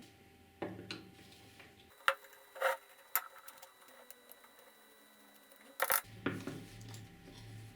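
Scattered sharp clicks and light clinks of small hard parts being handled, a few separate taps spread over several seconds.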